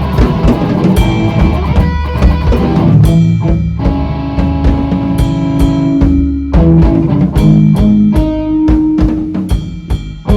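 A rock band playing an instrumental passage: guitar with sustained notes over a drum kit and bass. The band eases off briefly just before the end, then comes back in on a hit.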